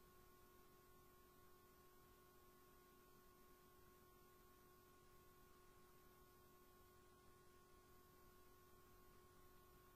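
Near silence: a faint, steady electrical hum with no machining sound.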